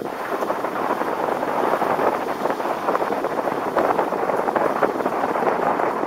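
Wind buffeting the microphone of a camera mounted on an open-top convertible as it drives: a rough rushing noise that builds over the first second and then holds steady.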